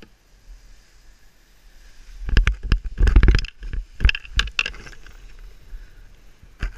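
Wind buffeting the microphone and the Advance Sigma 9 paraglider's nylon wing rustling and flapping as it is pulled up overhead for launch. The noise starts about two seconds in, comes in rough gusts with a heavy rumble, and eases after about five seconds.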